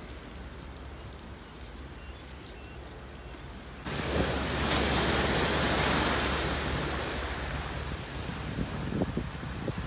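Sea waves surging and washing over concrete tetrapod breakwater blocks, with wind buffeting the microphone. The wash starts abruptly about four seconds in, after a quieter stretch of low wind rumble.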